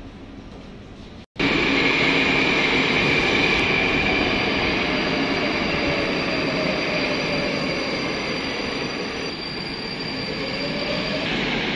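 Metro train running in a station: steady rumbling with a high, even whine over it, and a motor tone that slowly falls and then rises again near the end. For about the first second there is only a quieter station hum, which cuts off abruptly before the louder train sound starts.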